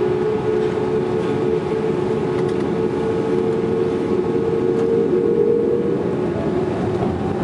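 Airliner's jet engines heard from inside the cabin as the takeoff begins: a steady rushing noise with a constant droning whine.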